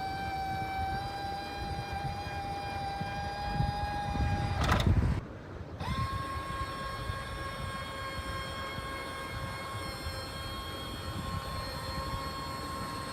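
Grasshopper 725DT6 zero-turn mower running with a steady whine. About five seconds in there is a brief louder rush, then the whine returns at a higher pitch.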